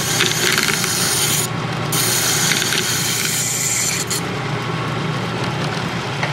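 Hand file rasping against a cast iron workpiece spinning in an Atlas metal lathe, rounding over its edge, in two long strokes with a short break about a second and a half in. The file comes off about four seconds in, leaving the lathe running with a steady gear hum and a few light clicks.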